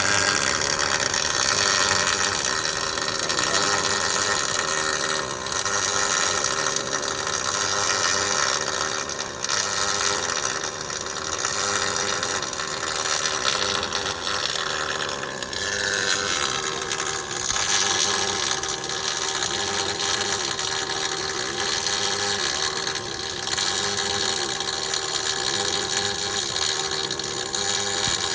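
MIG welder running a continuous spray-transfer arc on aluminum: a steady hiss with a hum under it, unbroken through the bead.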